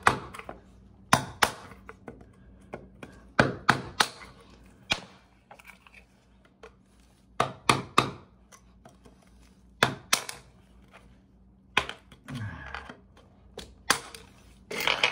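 Hammer striking a long steel chisel, sharp knocks in short groups of two to four with pauses between, chipping pieces of an old broken PVC toilet flange out from inside the drain pipe.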